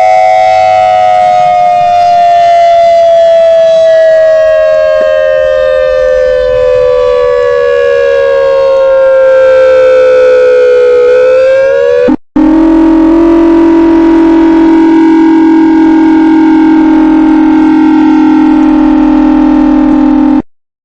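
ACA Alertronic 6000R electronic outdoor warning siren sounding loudly. Its tone falls slowly in pitch, breaks off for an instant about twelve seconds in, then holds a steady, lower tone that cuts off abruptly near the end.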